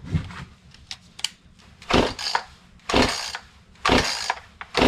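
Stihl chainsaw being pull-started: four quick yanks of the recoil starter cord about a second apart, each a short rasping whir of the engine turning over, without the cold engine yet catching. Light handling clatter comes before the first pull.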